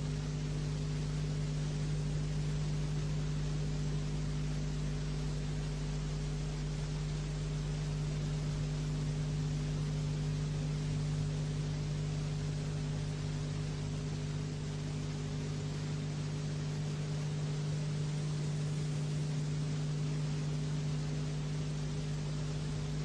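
Steady low hum with a constant hiss, unchanging throughout.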